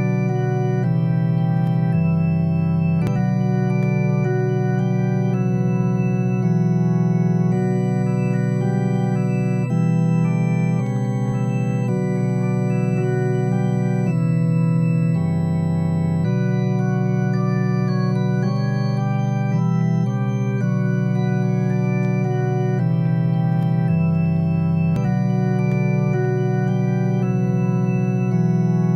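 Slow organ music: sustained chords held and changing every second or so, with a deep bass note dropping in briefly three times.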